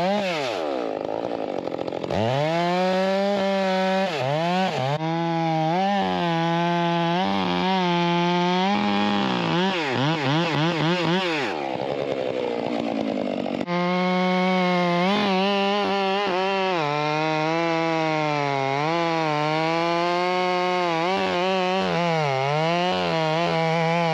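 Two-stroke chainsaw running at high revs through firewood cuts, its engine note sagging and recovering over and over as the chain loads in the wood. It drops off toward idle and revs back up about a second in, and again past the middle.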